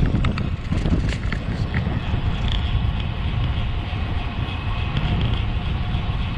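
Wind buffeting the microphone of a camera on a moving bicycle, a steady low rush with tyre and road noise underneath. A few faint clicks come in the first two seconds.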